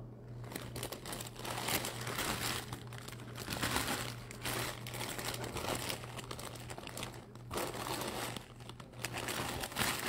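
Clear plastic bag around a jersey crinkling and rustling irregularly as it is handled and turned over.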